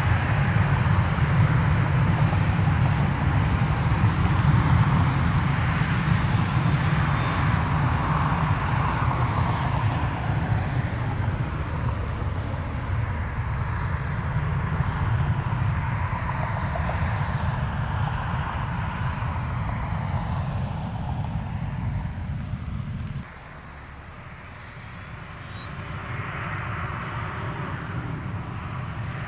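Jet airliner passing under power, a deep rumble under a broad roar with a high whine that falls in pitch. About 23 seconds in the sound cuts off abruptly to a quieter level, then jet noise builds again near the end.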